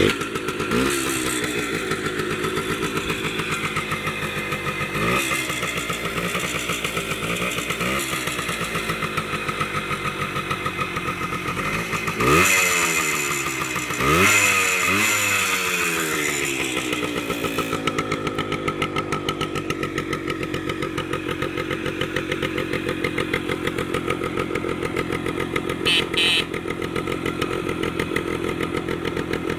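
The 90cc oil-injected two-stroke engine of a 1974 Harley-Davidson AMF Aermacchi X90 minibike catches right at the start and runs with its typical rapid two-stroke buzz. It is revved up several times in quick blips, the biggest about twelve and fourteen seconds in. It then settles to a steady idle, with a short clack near the end.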